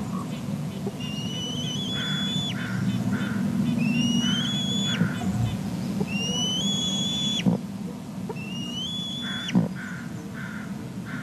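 Young bald eagle calling: four long whistled squeals a few seconds apart, each rising and then held for about a second before cutting off abruptly, typical of an eaglet begging for food. Fainter short calls repeat in the background over a steady low rumble.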